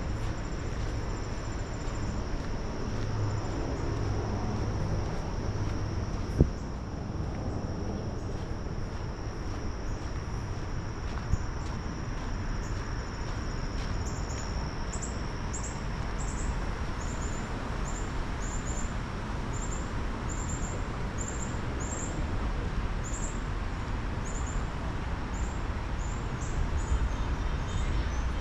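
Insects singing: a steady high trill, joined about halfway through by a rhythmic high chirping about twice a second, over a low steady background rumble. One sharp click stands out about six seconds in.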